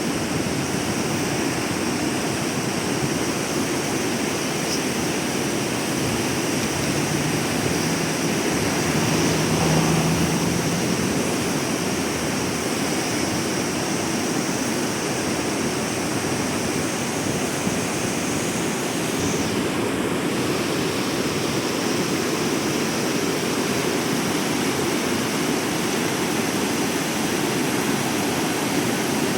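River water rushing steadily over the Quijos River's rapids: a constant, even noise.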